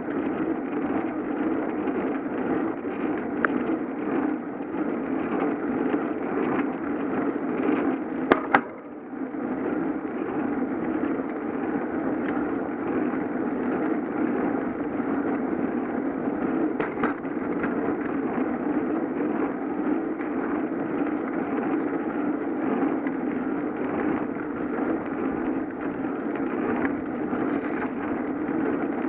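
Bicycle riding along a road: a steady rumble of tyres on pavement and air rushing past. About eight seconds in come two sharp clicks, and the rumble briefly drops before picking up again.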